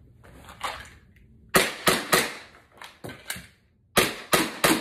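Glock 19X pistol shots in a small room: a run of sharp cracks, the loudest in two quick strings of three about two seconds apart, with lighter cracks before and between them.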